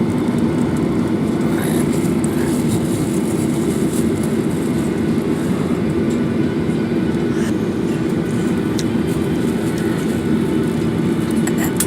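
Steady low rumble inside a moving vehicle, with a few faint light clicks.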